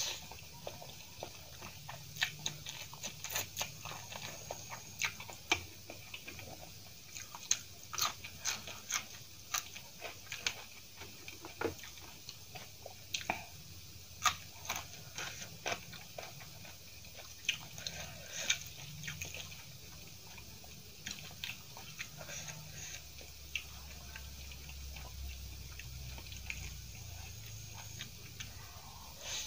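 Close-miked mouth sounds of a person eating masala instant noodles: soft, wet chewing with many small irregular clicks and smacks.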